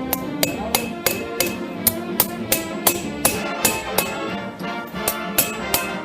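Hand hammer striking thin sheet metal on an anvil in a steady rhythm, about three blows a second, texturing the metal. Background music with brass instruments plays underneath.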